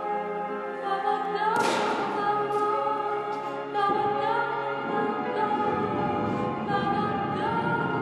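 Operatic choral music, with voices holding long notes that step up and down. A sudden crash comes about a second and a half in.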